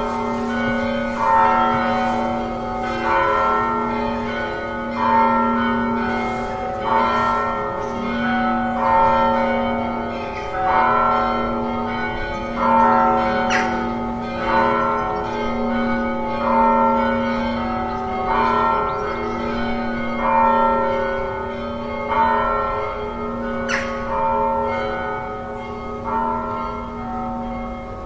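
Church bells tolling, a fresh stroke about every two seconds, each ringing on into the next over a steady low hum.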